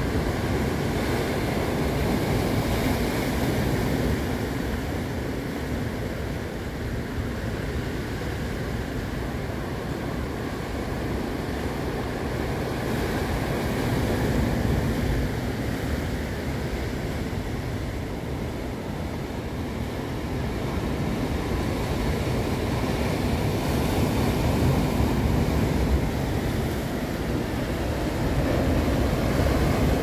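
Sea surf breaking over and washing around rocks, a steady rushing that rises and falls in slow swells.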